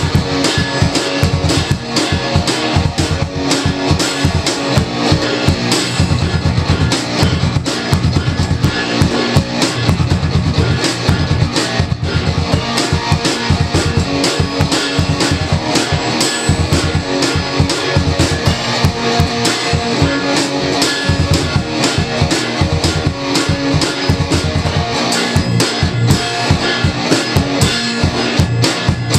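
Rock music with a fast drum kit, bass drum and electric guitar playing steadily.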